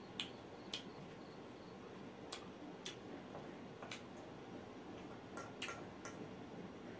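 A person eating grilled goat meat: irregular sharp wet smacks and clicks of chewing with an open mouth, about eight in seven seconds, over a faint steady background hum.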